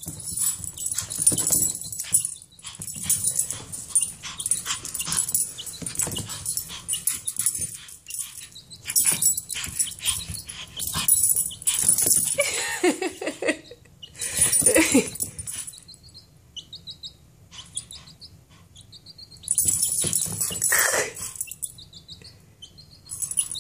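Japanese Chin dog whining and yipping in a few short bursts while scrabbling and scuffing on a rug. In the quieter second half a baby chick peeps in short, high, repeated cheeps.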